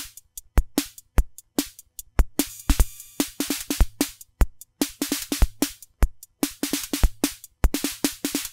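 Drum machine playing a steady beat: kick drum thumps with quick hissy hi-hat and cymbal hits, and a longer cymbal wash about three seconds in.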